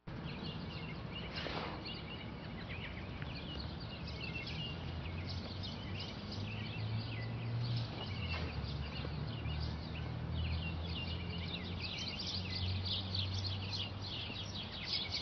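Many small birds chirping at once, a quick run of short calls that grows denser near the end, over a steady low rumble.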